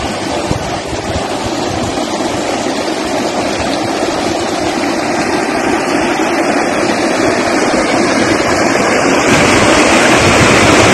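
Fast-flowing floodwater rushing and churning over rapids, a steady roar of water that grows gradually louder.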